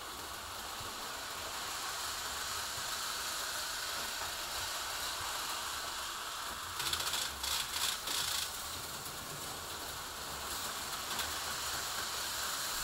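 HO-scale slot cars running laps on plastic track, with a model train running on the outer loop: a steady whirring rattle of small motors and wheels. About seven seconds in there is a second or so of louder clattering.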